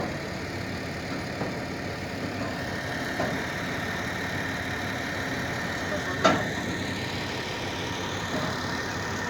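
An engine running steadily at idle, with a sharp knock about six seconds in and a few fainter knocks.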